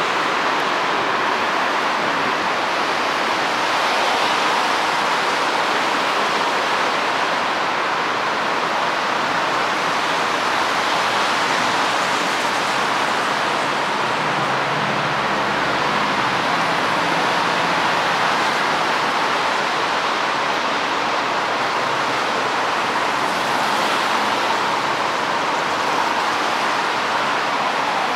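Steady rushing noise of road traffic, an even roar with no single vehicle standing out.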